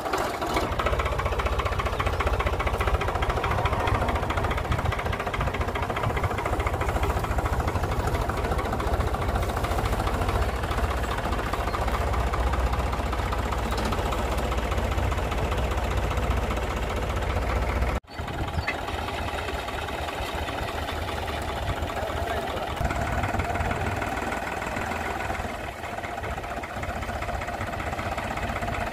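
Diesel tractor engines running steadily under load as a tractor pushes a fully loaded tractor and trolley. The sound breaks off for an instant about two-thirds of the way through, then carries on with less low rumble.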